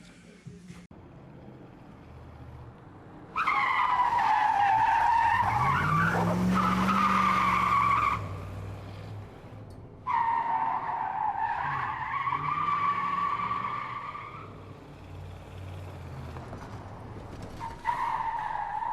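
Car tyres squealing in long, wavering screeches, one starting suddenly about three seconds in and another about ten seconds in, with a short squeal near the end. An engine revs underneath the squeals.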